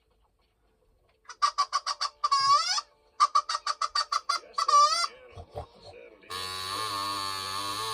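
Hen clucking sound effect: two runs of quick clucks, each ending in a rising squawk. About six seconds in, a steady buzzing tone begins.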